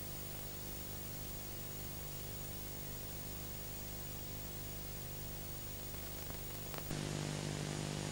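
Steady hiss with a low electrical mains hum and no programme sound. About seven seconds in there is a faint click, and the hum and hiss step up slightly louder.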